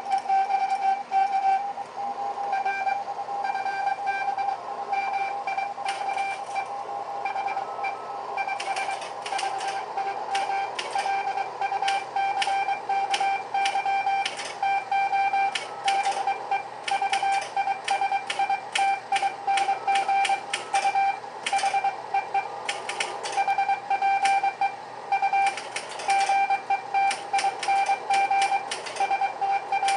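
Morse code (CW) signal: a single steady-pitched tone keyed on and off in dots and dashes. From about six seconds in, typewriter keys clatter quickly alongside it as the operator types out the incoming code.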